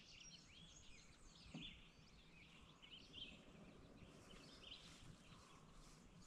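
Near silence: faint, scattered bird chirps over quiet outdoor ambience.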